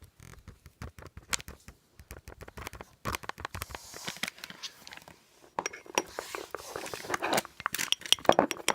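Irregular clicks, taps and scraping of a utensil against a container as baking soda is added to white craft glue and stirred in, busier and scratchier in the second half.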